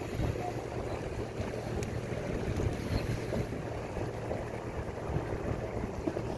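Wind buffeting the microphone as a low, fluttering rumble, with choppy water splashing against a small boat.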